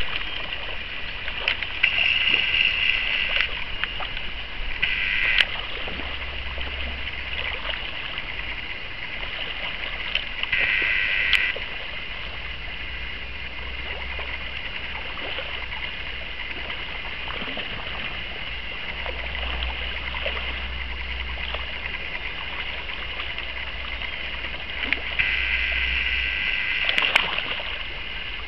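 Shallow gravel-bed river running steadily, with wind rumbling on the microphone and a few brief splashes as spawning salmon break the surface.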